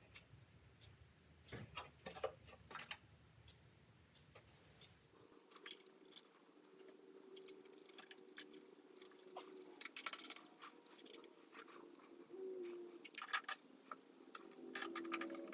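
Scattered light clicks and metal clinks of hand-tool work on the saw's bolts and steel parts. A low hum stops about five seconds in.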